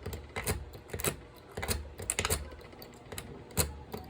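Lock picks and a tension wrench working in a lock: a series of sharp, irregular metallic clicks and taps.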